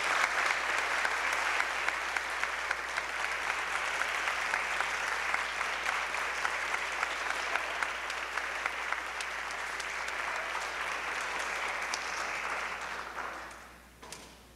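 Audience applauding, steady at first and then dying away about a second before the end.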